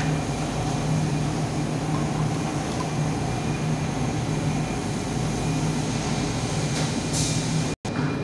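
Steady low mechanical hum under an even rushing noise. The sound cuts out completely for an instant near the end.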